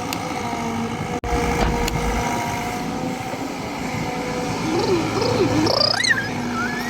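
CAT excavator's diesel engine running steadily. Near the end a wavering call rises and falls over it.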